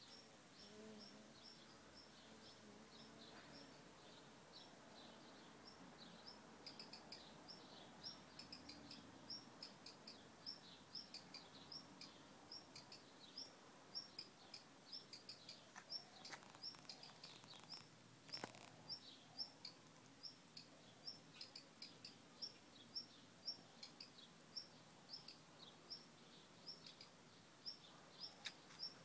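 Faint high chirps repeated evenly, about two a second, becoming steady a few seconds in, with a couple of soft clicks in the middle.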